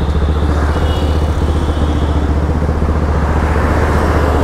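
Bajaj Pulsar NS200's single-cylinder engine, ECU-remapped and fitted with a full-system aftermarket exhaust, running steadily while the bike is ridden, heard from the handlebars.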